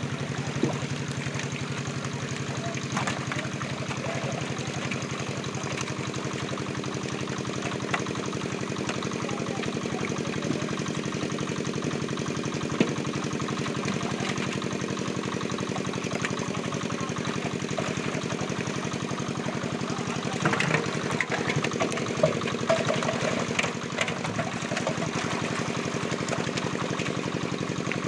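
A small engine running steadily at a constant speed. A few louder water splashes come about twenty seconds in, from fish thrashing in a seine net.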